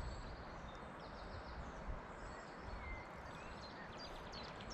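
Small birds chirping in short, high calls over a steady rush of river and wind noise, with low rumbles from wind on the microphone.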